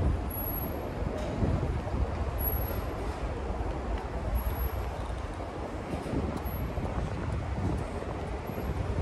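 Road traffic rumbling steadily beneath an elevated expressway, with wind gusting on the microphone.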